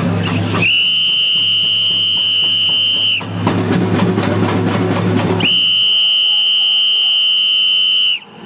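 Two long, shrill, steady high-pitched blasts from a noisemaker, each about two and a half seconds, with a short gap between them. A steady low hum sounds under the first blast and the gap, then stops.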